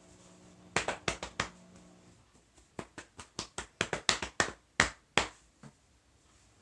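Open hands striking sharply: a quick run of four strikes about a second in, then about a dozen more at an uneven pace over the next two and a half seconds.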